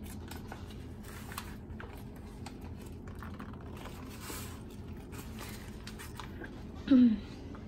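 Paper being handled and crumpled by hand over a kitchen sink: soft crinkling and rustling with small clicks. Near the end comes a short, louder vocal sound that falls in pitch.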